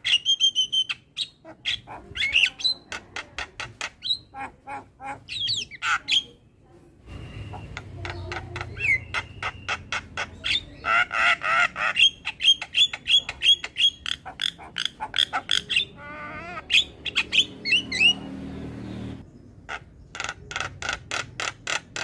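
Javan myna calling: fast runs of harsh, clicking chatter mixed with squawks and short whistled notes, with brief pauses about a third of the way in and near the end.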